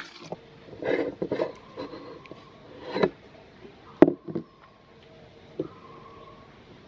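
Knocks and clicks of a manual cast-metal meat grinder being handled, its front plate and ring nut gripped by hand. The sharpest click comes about four seconds in.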